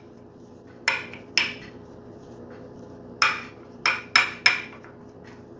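A spoon stirring a thick nut butter and cocoa mixture in a small dish, knocking against its sides in sharp clinks: two about a second in, then four quicker ones from about three seconds in.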